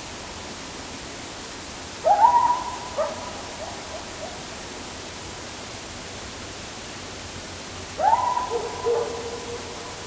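Two loud hooting calls over a steady hiss, one about two seconds in and one near the end. Each swoops sharply up and holds a steady note for about a second, and the second trails into a lower held note.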